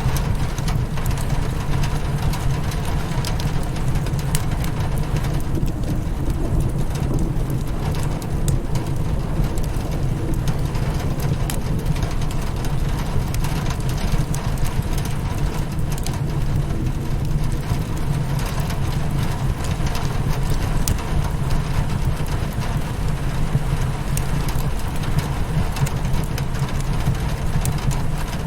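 Rain pattering on a windowpane mixed with a crackling wood fire: a steady low rumble with scattered sharp crackles and ticks throughout.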